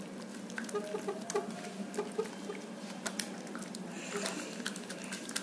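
Glue-and-borax slime being squeezed and kneaded by hand in a plastic cup, giving many small irregular sticky clicks. The slime is nearly set.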